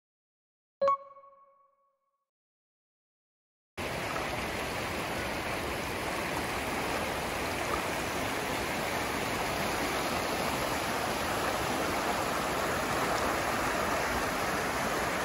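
A single bell-like chime rings about a second in and dies away. After a few seconds of silence, the steady rush of a fast river running over rocky shallows starts suddenly and carries on.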